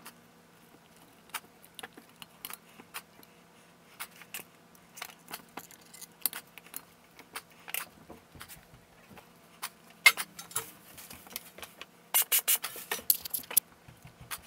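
Steel and friction clutch plates of a Volvo 850 automatic transmission clicking and clinking against each other and the clutch drum as they are worked down and aligned by hand. Scattered single clicks, with a busier burst of clinking about ten seconds in and the loudest quick run of clinks near the end.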